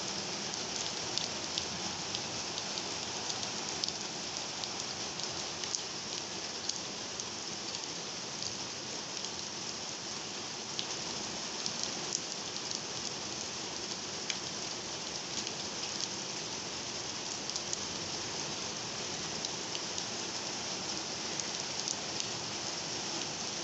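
Heavy rain falling steadily, with scattered sharper ticks of drops landing close by; no thunder is heard.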